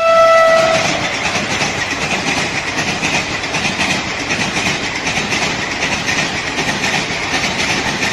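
A train horn sounds once, a single short note, then a train keeps running with a steady, even rail noise.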